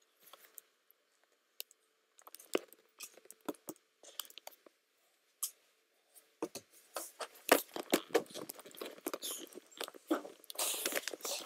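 Irregular clicks, knocks and rustling: a few scattered ones at first, then coming thick and fast from about halfway on, with a louder stretch of rustling near the end.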